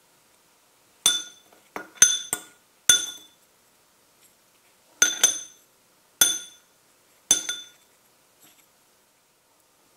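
A metal teaspoon clinking against a small glass bowl as pineapple pieces are turned in powdered sugar: a run of sharp, ringing clinks, several in quick succession over the first three seconds, then three more spaced about a second apart.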